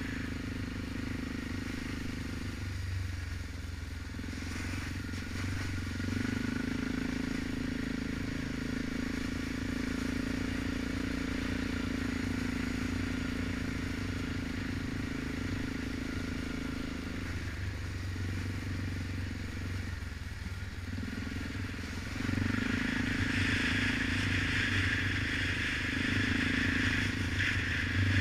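Single-cylinder four-stroke ATV engine running at riding speed on a trail, easing off and picking up again a few times. About three quarters through it gets louder, with an added hiss.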